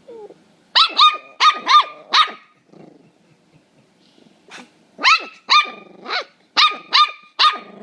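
Puppy yapping: two quick runs of short, high-pitched barks, about five in the first couple of seconds and about six more starting about five seconds in.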